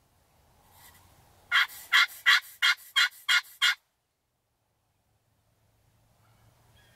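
A series of seven loud turkey yelps, about three a second, starting about a second and a half in and stopping near the four-second mark.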